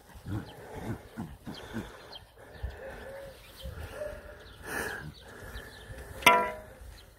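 Jack Russell terrier and a puppy playing tug: scattered short growls and small calls, then one sharp, loud yap about six seconds in.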